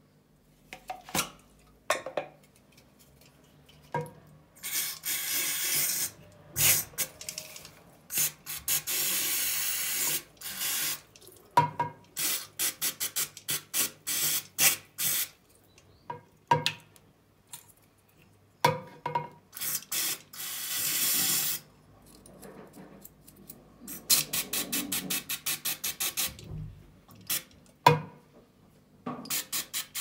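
Aerosol brake cleaner spraying in several long hisses of one to two and a half seconds and runs of quick short squirts, with a few sharp clicks between them, as oil is washed off a car's brake pedal switch.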